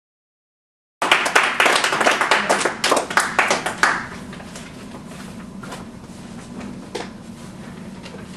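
A small group clapping for about three seconds, starting about a second in, then quieter room noise with a few light knocks.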